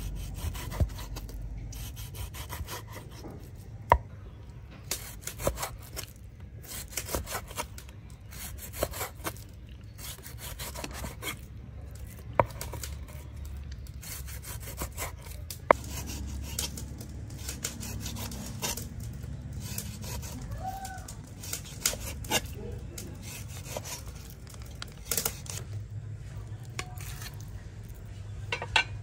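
Kitchen knife slicing raw beef on a wooden chopping board: the blade saws through the meat and taps on the wood in irregular knocks, a few of them sharp and loud.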